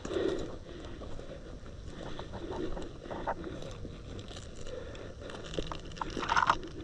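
Footsteps and gear rustling picked up by a body-worn camera: irregular crunches and clicks over a low rumble of handling noise, with a louder scuffle about six seconds in.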